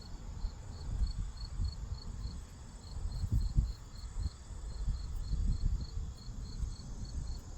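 A cricket chirping steadily, about four chirps a second, over irregular low rumbles and knocks.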